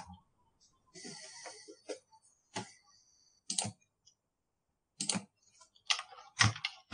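Scattered clicks and knocks at a desk, with a short rustle about a second in and the loudest knocks near the end.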